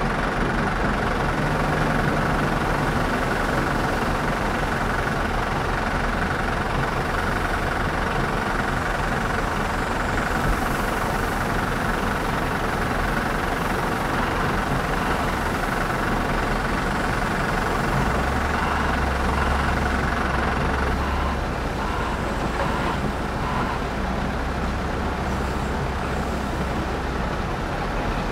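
Heavy diesel engines running steadily: a Volvo L260 wheel loader working as it lifts its bucket over the truck, with the Scania R580 V8 truck idling. About two-thirds of the way through a deeper engine note comes in and holds as the loader works toward tipping its load.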